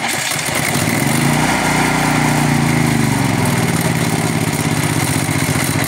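Firman H07552 portable generator's single-cylinder engine starting on its electric starter and then running steadily, with a slight waver in pitch. It is running on natural gas through a conversion kit whose mixture screw is being adjusted.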